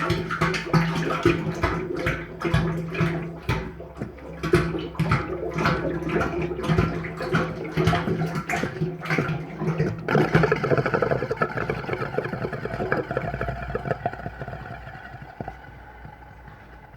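Hydraulic oil pouring from a drum into an excavator's hydraulic tank, coming out in repeated gulps for the first ten seconds. After that it flows more smoothly and tapers off near the end as the drum empties.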